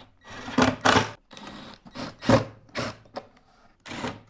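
Wooden Langstroth hive box parts scraping and knocking as the box is handled and put together: a string of short, noisy bursts, the loudest about half a second, one second and two seconds in.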